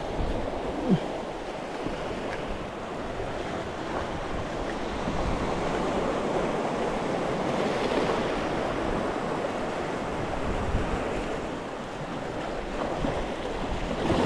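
Sea waves washing and breaking over shoreline rocks in a steady surging wash, with wind buffeting the microphone and a brief knock about a second in.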